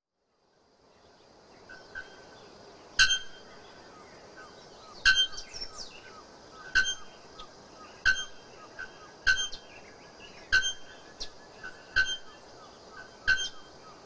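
Bare-throated bellbird calling: a series of about eight loud, sharp, ringing notes, one every second or two, fading in from silence about half a second in.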